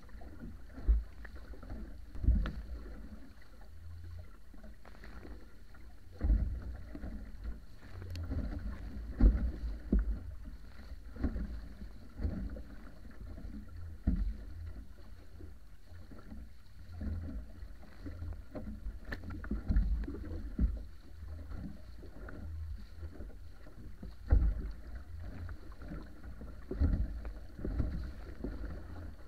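Wa'apa outrigger canoe under sail: water rushing and splashing along the wooden hull, with irregular low thumps every second or two as waves slap the hull and wind buffets the microphone.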